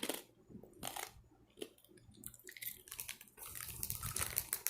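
Chewing hard, crunchy seasoned pork skin strips: a couple of separate crunches about a second apart, then a denser run of crackling crunches in the second half.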